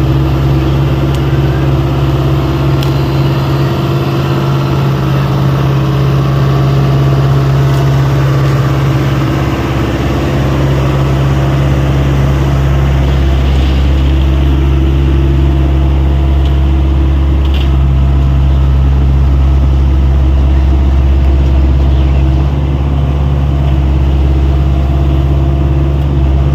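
Excavator engine running steadily with a low, even drone.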